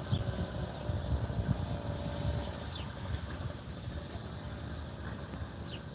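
Uneven low outdoor rumble, heavier in the first half, with three short high falling bird chirps spaced about three seconds apart.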